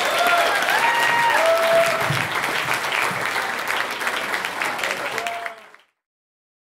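Audience applauding and cheering, fading out to silence about five and a half seconds in.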